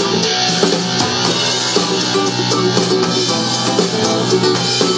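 Music with drums and guitar playing from a JBL Flip 2 portable Bluetooth speaker.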